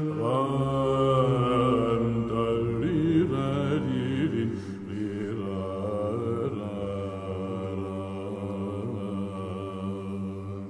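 Byzantine chant in the fourth mode legetos: a solo male cantor sings a slow, ornamented melody that glides and wavers between notes over a steady held drone, the ison. It grows gradually softer toward the end.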